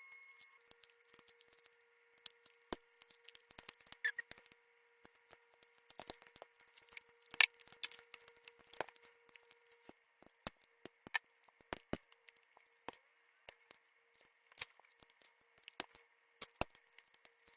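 Close-up eating sounds of chewing chicken wings: irregular sharp clicks, crackles and mouth sounds, several a second at times, with a few louder cracks.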